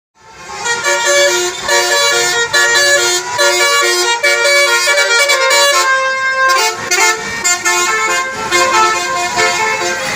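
Basuri musical bus horn ('telolet') playing a quick tune of short notes that change pitch several times a second, with one longer held note about six seconds in. It starts abruptly.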